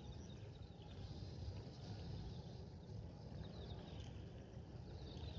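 Strong wind rumbling low and steady against the microphone, with faint bird chirps above it.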